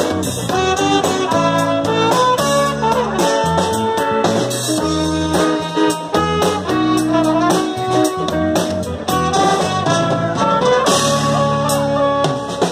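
Live band playing a song's instrumental intro: drum kit, electric bass and electric guitar under a melody line of held notes, with a steady beat.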